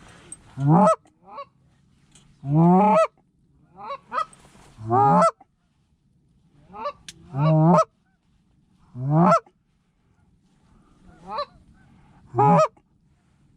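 Goose honking: six loud honks, each starting low and breaking upward in pitch, some led by a softer, shorter note, with quiet gaps between.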